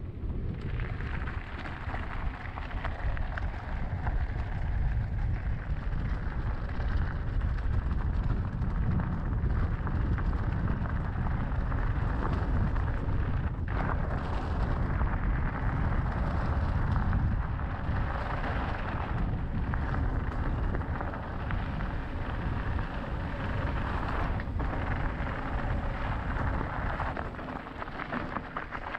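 Wind buffeting the microphone of a helmet-mounted action camera as an electric mountain bike rolls along a gravel track, its tyres crunching over loose stones, with a few brief knocks from the rough surface. The noise eases near the end.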